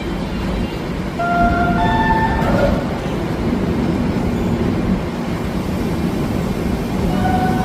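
Garib Rath Express train running, a steady low rumble of wheels on track. A few brief higher tones sound about one to two seconds in.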